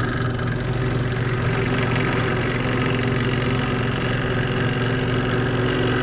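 Benchtop drill press motor running steadily at speed while a 3/16-inch bit drills out holes in a kit's project enclosure.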